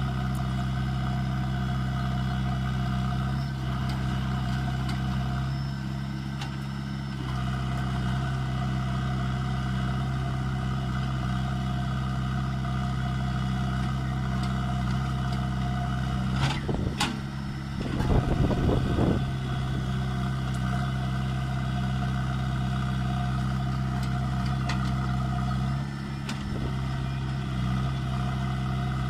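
Diesel engine of a JCB 3DX backhoe loader running steadily at a low, even speed. A little past halfway comes a brief, louder clattering burst.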